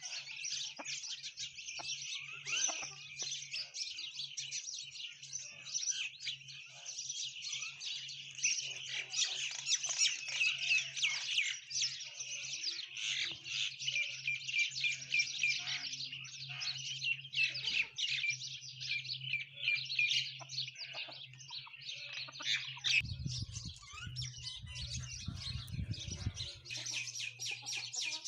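Common mynas and sparrows chirping in a dense, continuous chorus, over a faint steady low hum. A low rumble comes in for a few seconds near the end.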